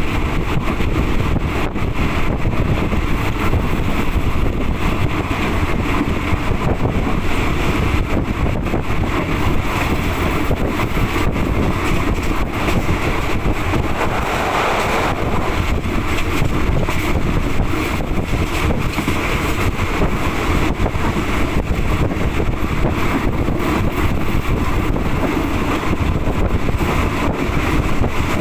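Wind buffeting the microphone at the open window of a moving passenger train, over the steady running noise of the train on the rails. About halfway through, the sound grows briefly fuller as the train crosses a steel truss bridge.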